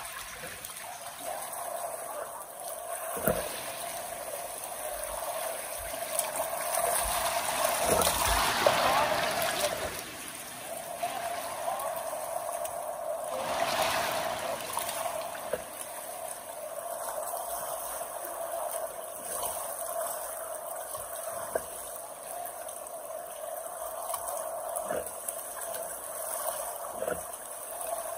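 Kenai River water flowing and rippling steadily, with a few short knocks.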